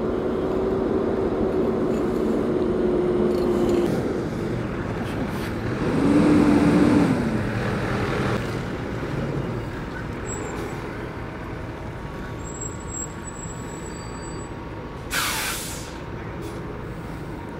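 Heavy vehicle engines running steadily, swelling louder for a moment about six seconds in, with a short burst of hissing air about fifteen seconds in.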